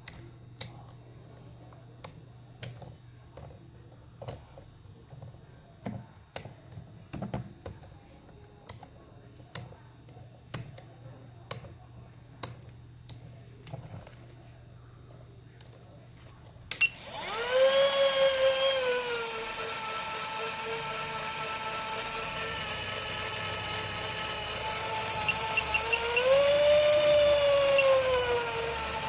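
Scattered sharp clicks for the first half. Then a small high-speed electric motor, such as that of a modified toy spinner helicopter, starts abruptly and runs with a high whine and hiss. Its pitch rises briefly near the end before settling.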